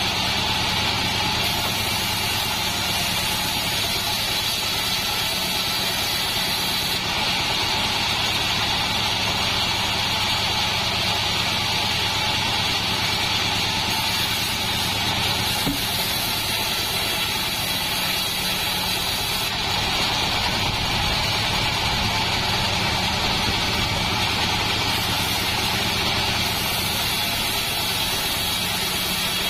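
Assembled bandsaw mill running steadily as it saws a beam of Javanese salam wood: a constant machine drone with the hiss of the band blade in the cut.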